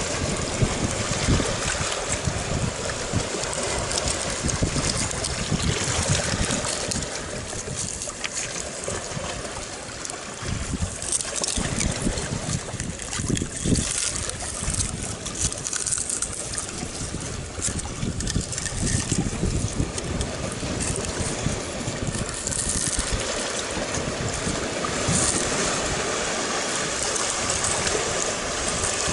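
Wind buffeting the microphone over the steady wash of sea water against shore rocks.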